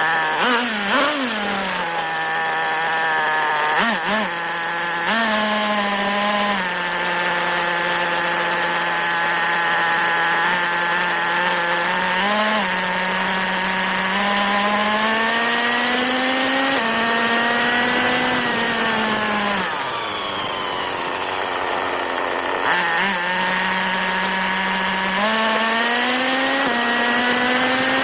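Tornado S30 buggy's small engine running at high revs, its pitch rising and falling as the throttle is worked, with a few quick blips in the first few seconds. About two-thirds of the way in it drops low, then climbs again a few seconds later.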